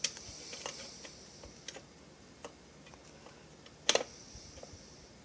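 Scattered light clicks and taps of small chainsaw parts and tools being handled, with one sharper click about four seconds in.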